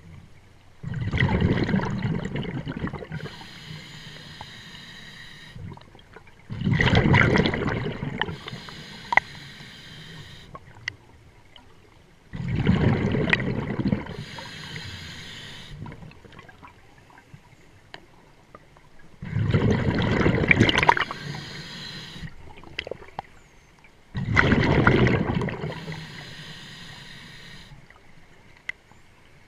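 Scuba diver breathing through a regulator underwater: five loud bubbling exhalations, one every five to seven seconds, each followed by a fainter hiss of the next inhalation.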